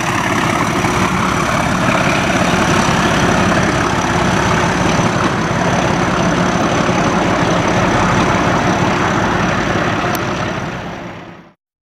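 Colas Rail Class 37 diesel locomotive 37099 pulling away on a test train: its English Electric V12 diesel engine runs loud and steady, with a thin high whistle over the engine note. It fades near the end and then cuts off suddenly.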